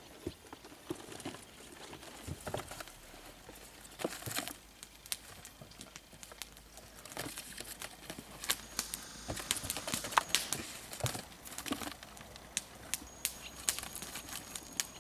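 Cardboard boxes being handled and opened: irregular taps, knocks and rustling of cardboard, busiest in the middle of the stretch.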